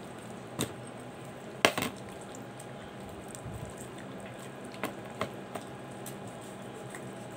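A kitchen knife working through a raw whole chicken, with a handful of short sharp clicks and taps of the blade against bone and the cutting board, the loudest a pair about a second and a half in, over a steady low hum.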